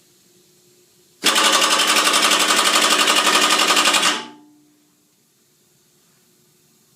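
Torque-controlled pneumatic impact wrench (Florida Pneumatic FP-745TCI) hammering rapidly for about three seconds, then stopping. It is driving against a torque tester at its 100 foot-pound setting.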